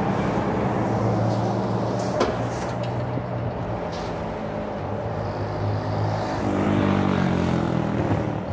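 Road traffic: a motor vehicle engine running close by with a steady low hum, and a vehicle going past near the end, its engine note shifting in pitch. A sharp click about two seconds in.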